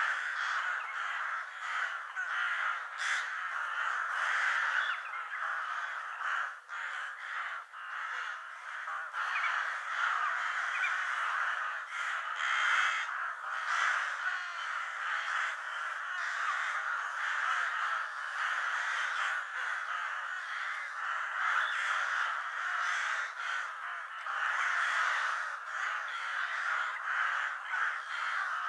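A flock of ravens cawing, many calls overlapping without a break.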